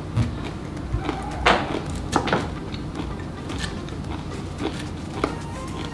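Chewing of crisp raw red cabbage and onion salad, with several short sharp crunches, then a metal fork clinking and scraping against a ceramic bowl near the end.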